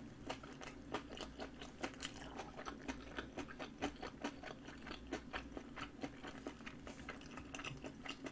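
A person chewing a mouthful of food with mouth closed, close to the microphone: a steady run of small crunches and clicks, several a second.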